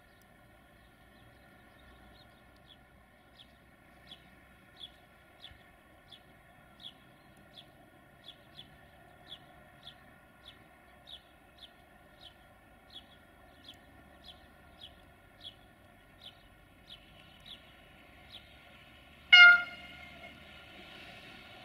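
Siemens Desiro diesel multiple unit approaching, with a steady whine and a regular high ticking about one and a half times a second. Near the end it gives one short, loud horn blast.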